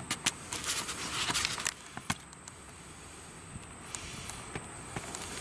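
Handling noise from a camera being set up and positioned: rustling and sharp clicks, busiest in the first second and a half, then a few scattered faint clicks.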